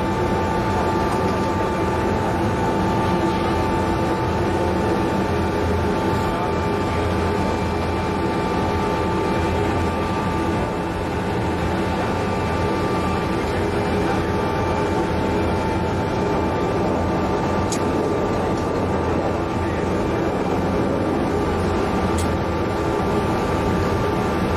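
Steady machinery drone on a ship's deck: a broad rumble with a constant high whine.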